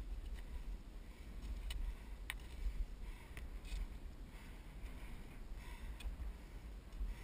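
Rossignol skis hissing and scraping through chopped-up powder snow in a fast descent, with wind rumbling on the microphone. A few sharp clicks stand out, the clearest about two seconds in.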